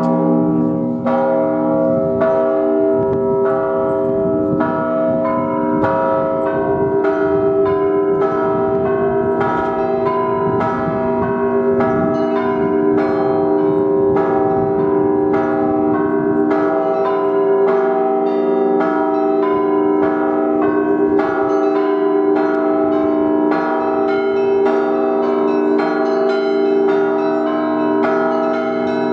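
Russian Orthodox monastery bells being rung together in a peal: the smaller bells are struck in a quick, steady rhythm of about two strokes a second over the long, ringing tones of the larger bells.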